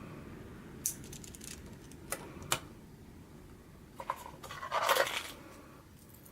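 Small plastic LEGO Technic pieces clicking and rattling: a few separate sharp clicks, then a louder burst of rattling about five seconds in, as of pieces knocked together or stirred in a pile.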